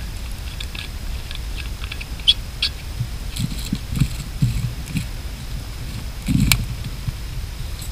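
A stick stirring and poking through a doused campfire's wet embers and charred wood, making irregular scrapes and knocks, with one sharper crack about six and a half seconds in. The fire is being raked over to make sure it is out.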